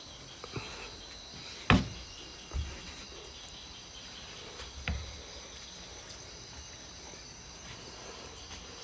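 Steady night chorus of insects, several high-pitched calls holding constant. Three short sharp knocks cut through it, the loudest just under two seconds in.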